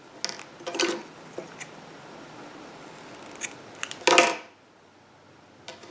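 Scissors snipping a crochet yarn end: a few short snips and clicks, the loudest about four seconds in.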